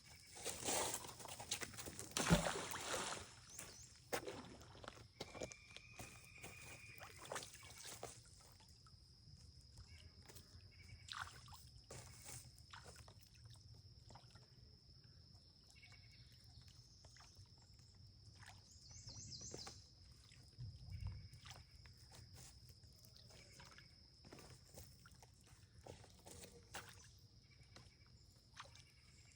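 A fishing magnet on a rope is thrown and lands in the water with a splash about two and a half seconds in, then the rope is hauled back hand over hand with scattered small knocks and scrapes. A steady high insect drone runs throughout, and a bird chirps briefly twice.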